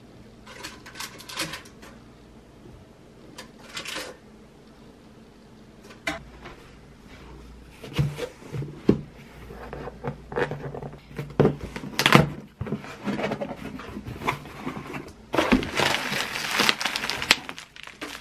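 Hands opening a cardboard shipping box: knocks, scrapes and the crackle of tape and cardboard, becoming busier about eight seconds in, with a long rustling tear near the end.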